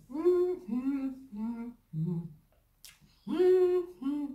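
A woman humming through a mouthful of boiled egg, her lips closed: a string of short hummed syllables with a pause of about a second partway through.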